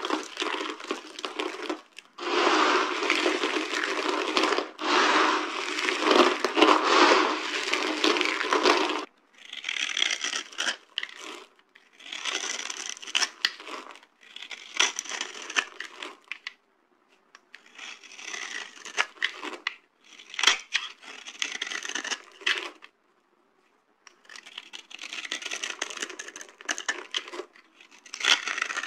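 Dry soap crunching and crumbling as it is crushed: a dense, continuous crunch for about the first nine seconds, then a run of shorter crunching bursts, each one to three seconds long, with brief pauses between.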